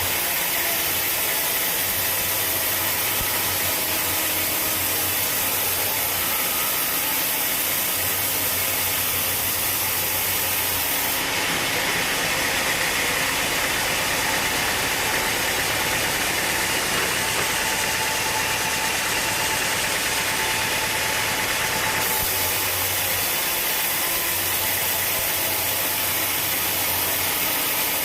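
Sawmill machinery running steadily, a continuous engine-driven noise. About eleven seconds in it turns harsher and higher for roughly ten seconds, then settles back.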